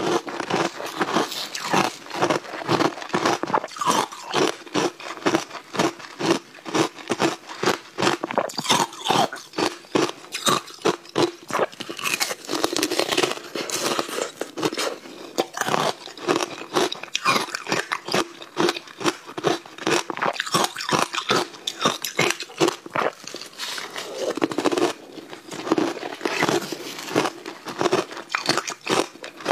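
Frozen ice blocks being bitten and chewed close to the microphone: a rapid, unbroken run of crisp crunches.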